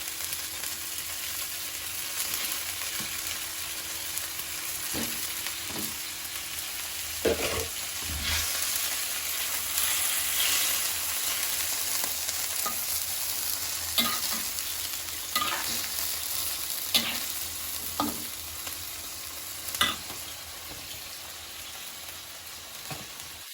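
Fried eggs and sweet soy sauce sizzling in a frying pan while a spatula stirs them, with several sharp knocks of the spatula against the pan.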